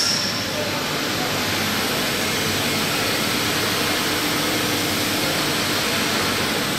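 Steady, even noise of a large CNC gantry machine running in a workshop, with a faint hum between about two and five seconds in while the axes return to their home point.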